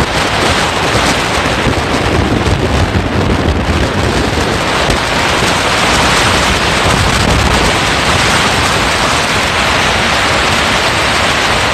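Steady loud rush of wind on the microphone and water along the hull of an open motorboat under way.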